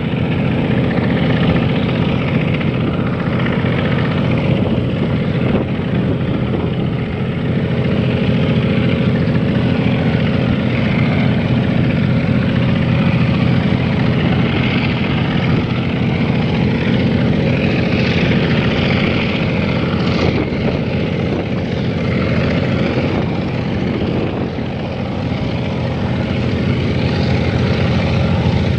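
Diesel locomotive engine running steadily as it hauls a long freight train, a low even drone.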